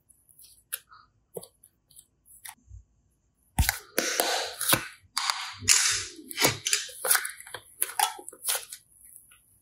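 Soft modelling clay handled by hand: faint sticky clicks at first, then from about three and a half seconds in a run of loud sharp crackling pops and squelches as the clay is pressed and squeezed in a fist.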